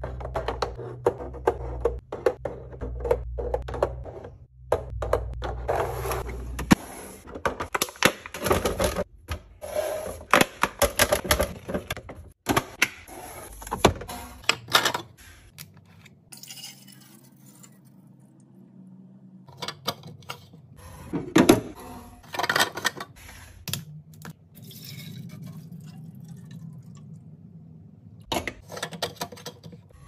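Many short clicks and taps of hands handling plastic kitchen containers: eggs set one by one into a clear plastic egg tray, then a plastic juice bottle and its screw cap.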